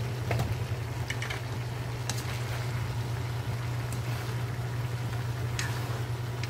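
Bottle gourd and chicken sizzling in a metal wok, with a few sharp clicks against the pan, over a steady low hum.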